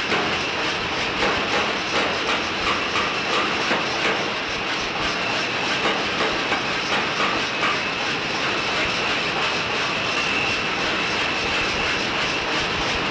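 Steady roaring din of drop-forging shop machinery, with a high whine running through it. A light rapid knocking, about two or three knocks a second, is heard over the first few seconds.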